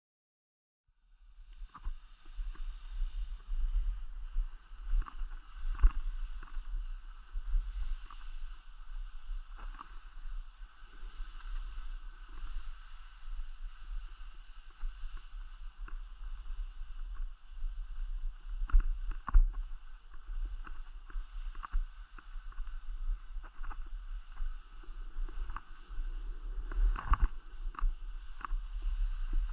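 Skis hissing and scraping over snow on a downhill run, with many short scratchy clicks and a heavy, pulsing low rumble of wind on the microphone; it starts about a second in.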